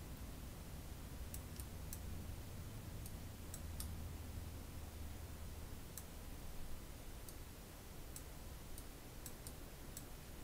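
Computer mouse clicking, about a dozen sharp, irregularly spaced clicks, over a faint low hum.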